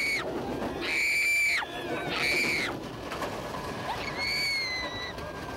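A string of long, high-pitched screams, several in a row, each held steady and then dropping off, over a low background rumble.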